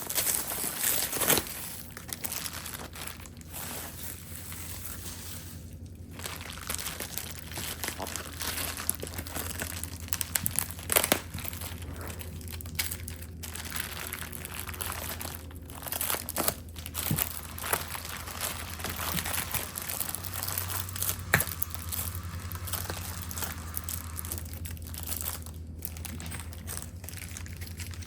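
Packaging crinkling and rustling as crystals are handled and set out, with occasional sharp knocks, over a low steady hum.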